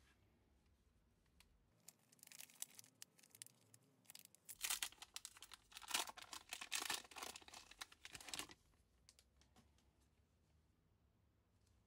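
Foil trading-card pack wrapper crinkling and tearing open in gloved hands: a run of sharp crackling rips over several seconds, loudest in the middle, then handling stops.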